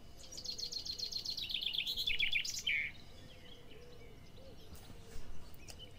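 A songbird singing: a fast run of chirping notes that falls in pitch over about two and a half seconds, followed by faint, scattered chirps.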